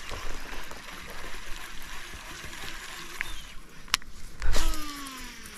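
A lure cast with a fishing reel: a click, a loud swish, then the reel spool whirring and falling in pitch as it slows.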